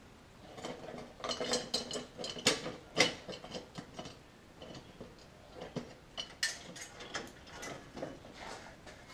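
Irregular metallic clinks, clicks and knocks of tools and metal parts being handled in a workshop, busiest in the first few seconds, with the sharpest knock about three seconds in.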